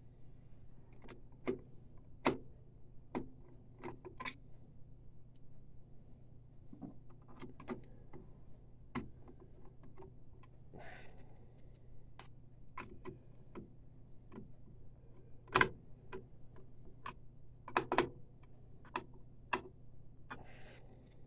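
Irregular light clicks and taps of small plastic and metal parts as a new inkjet print head is fitted into the printer carriage and its cables plugged in, with a few louder knocks in the last third. A faint steady low hum runs underneath.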